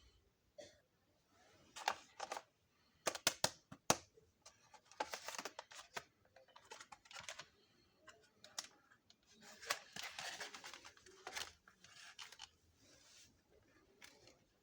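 Unboxing and handling of a plastic toy kitchen set: a run of sharp plastic clicks and taps, then bursts of rustling and crinkling packaging.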